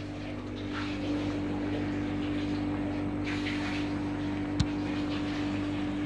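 LG mini-split air conditioner outdoor unit running with its compressor on: a steady hum with a constant tone, growing louder over the first second and then holding level. A single sharp click a little past the middle.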